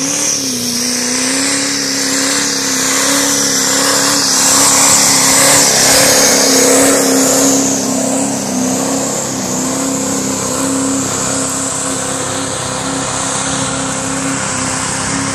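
Diesel pickup truck's engine pulling a weight-transfer sled under heavy load, held at high, nearly steady revs throughout the pull, with a haze of tyre and dirt noise. It is loudest about five to seven seconds in.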